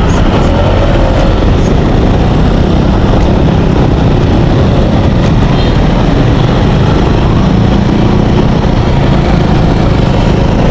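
Ambulance on the move: a steady, loud rumble of engine and road noise with no let-up.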